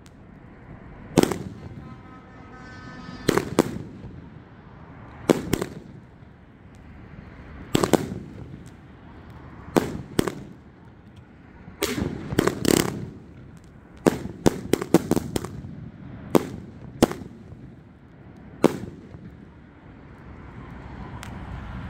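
A big-bore consumer firework cake firing its shots one after another: sharp bangs every second or two, some in quick pairs. A rapid cluster of bangs comes a little past the middle, and the last bang comes a few seconds before the end.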